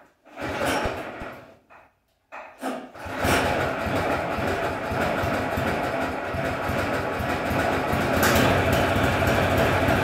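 The Frontier OS23 sawmill's small gasoline engine being pull-started: a few brief sputters in the first couple of seconds, then it catches about three seconds in and runs steadily.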